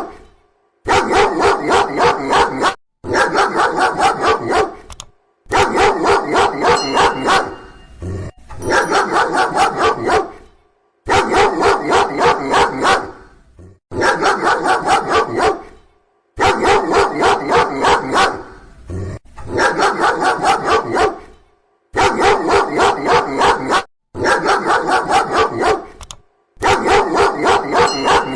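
Dog barking loudly in rapid runs of about four barks a second. Each run lasts about two seconds, and short silent breaks between runs start and stop abruptly.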